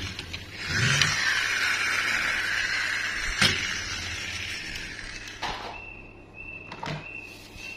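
Toy monster truck rolling across a tabletop, its wheels and gearing giving a steady whirring rush for a few seconds, with a few light clicks. Near the end a faint high tone pulses on and off.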